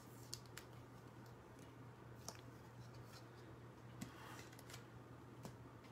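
Near silence: low steady room hum with a few faint, scattered clicks.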